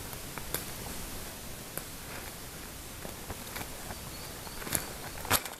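Footsteps on the forest floor, with scattered crackles of leaves and twigs, over a steady background hiss; the two loudest snaps come near the end.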